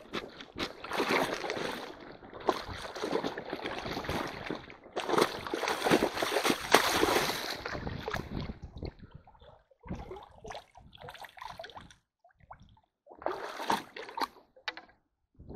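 Feet in waders splashing and sloshing through shallow, rocky stream water, kicking among the stones in front of a hand net. The splashing comes in long irregular bursts at first, then turns shorter and broken by brief silences about ten seconds in.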